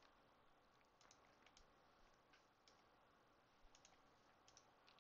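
Near silence with faint, irregularly spaced clicks of a computer keyboard and mouse over a low hiss.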